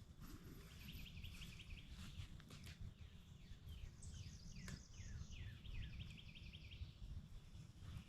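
Faint birdsong: a rapid trill of short notes heard twice, with a string of short falling chirps between, over a low rumble of outdoor background noise.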